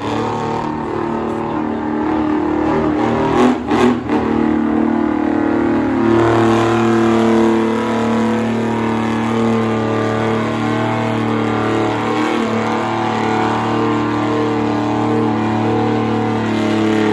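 Diesel pulling truck's engine running hard at a steady high pitch under full load as it drags a weight-transfer sled, with two sharp cracks about three and a half to four seconds in.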